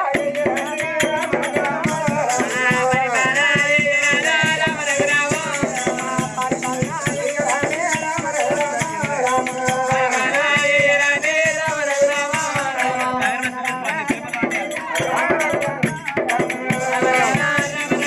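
Oggu katha folk music: voices singing a chanted melody over drum strokes and a steady metallic jingle of rattling percussion.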